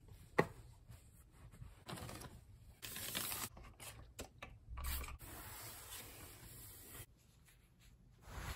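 Close-up hand-handling sounds: terry-cloth towels rubbing as they are straightened and folded, and small items set onto a cabinet shelf. There is a sharp knock about half a second in, and a stretch of rustling with a few light taps in the middle.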